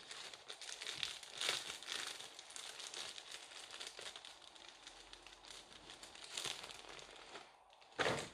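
Plastic packaging crinkling and rustling as craft wadding is handled and pulled out of its bag, with a louder rustle near the end.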